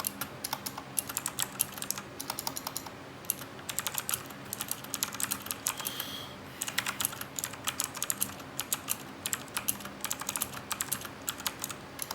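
Typing on a Cooler Master CK350 mechanical keyboard with clicky Gateron Blue switches: quick runs of sharp key clicks, broken by short pauses about two and a half seconds in and about six seconds in.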